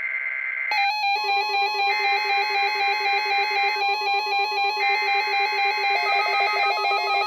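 NOAA Weather Radio test signal: the buzzy digital data bursts of a SAME alert header, coming and going in bursts a second or two long. About a second in, a synthesized ringtone-like tune with a steady pulse joins them.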